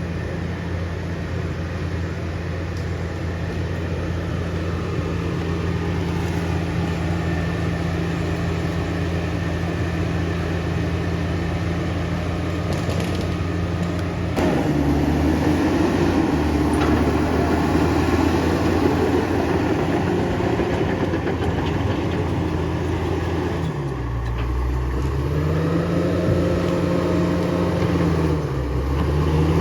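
Komatsu D68ESS bulldozer's diesel engine running steadily under load. About halfway through it gets louder, and near the end its pitch sags and climbs back twice, the engine pulling down and recovering under the drag of a heavy log.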